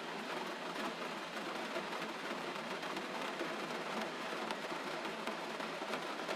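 Steady gentle rain, an even hiss with scattered faint drop taps.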